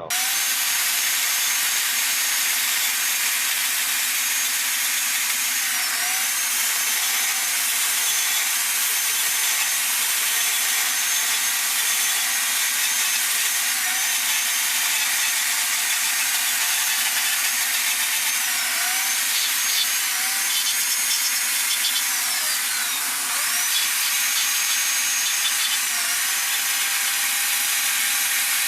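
Carving chainsaw running at speed, its tip bouncing against the wood to cut fur texture. Its pitch dips briefly several times as the chain bites and is loaded, then recovers.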